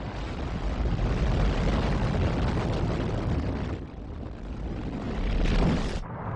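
Rocket launch roar: dense, deep rumbling noise of rocket engines at liftoff. It dips briefly about four seconds in, swells again, and is cut off abruptly just before the end.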